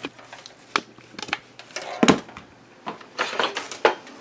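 Close handling noise: a scattered run of sharp clicks, knocks and rustles as a charger cord and plug are fumbled with, with the loudest knock about two seconds in.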